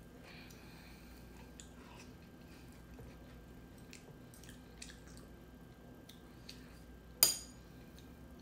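Quiet eating sounds: noodles slurped from a bowl of red bean soup, soft chewing, and light clicks of metal chopsticks and spoon. About seven seconds in, a sharp ringing clink as a metal utensil strikes the ceramic bowl.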